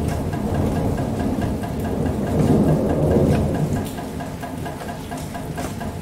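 Steady rain with a low rumble of thunder that swells about two and a half seconds in and eases off near four seconds.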